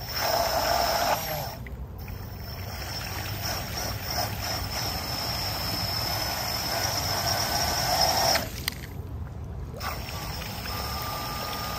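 Water spraying and splashing from a small 3D-printed jet pump running in a pool, its jet of water hissing across the surface. The spray noise cuts out for about a second after about eight seconds, then carries on more quietly.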